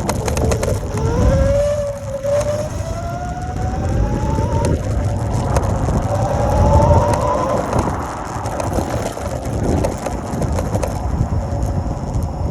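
Dualtron Storm electric scooter's hub motor whining under acceleration, its pitch rising twice, over low wind and road rumble. The whine is an abnormal noise that comes on when accelerating and then fades.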